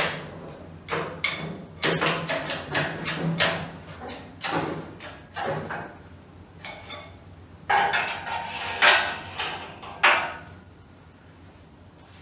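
Irregular metal clanks, knocks and scrapes of sheet-metal body parts being worked free and shifted while an old pickup's front clip is taken off with an engine hoist. The loudest knocks come about eight to ten seconds in, over a faint steady hum.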